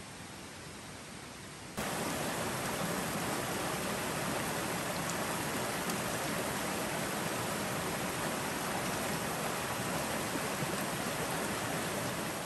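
A steady rushing noise with no distinct events, which jumps abruptly louder about two seconds in and then holds even.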